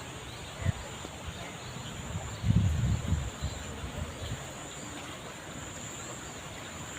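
Steady high-pitched insect buzzing over a light, even rain hiss, with a short low bump about a second in and a louder low rumble around the middle, like wind or handling on the microphone.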